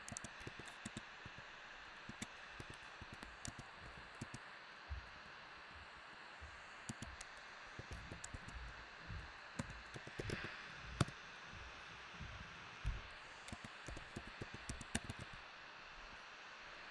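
Typing on a computer keyboard: scattered key clicks in short irregular runs over a steady faint hiss.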